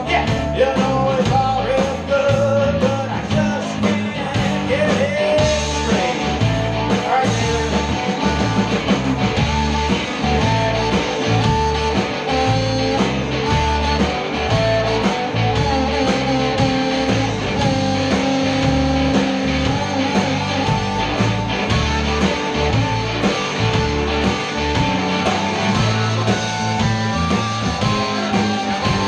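Live blues band: harmonica playing lead over electric guitar, bass guitar and drums, with a steady beat.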